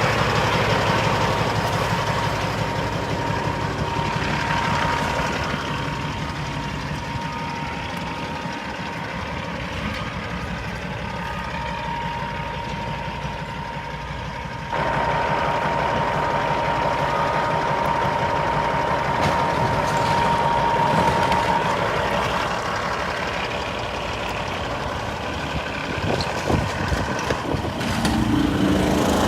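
Heavy construction machinery engine running steadily, with a steady high whine over it. The sound jumps abruptly louder about halfway through, and there are a few knocks near the end.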